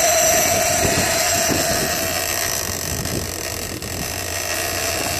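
Boat engine running under way, with wind on the microphone and water rushing along the hull. A steady hum fades about halfway through.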